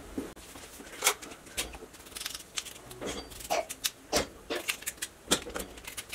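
A knife cutting chunks off raw potatoes held in the hand, the pieces dropping into a pot: about a dozen sharp, irregular cracks and clicks.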